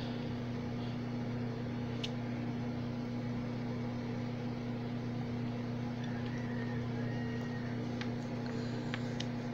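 Steady electrical hum of a mains-powered device, with a few faint clicks.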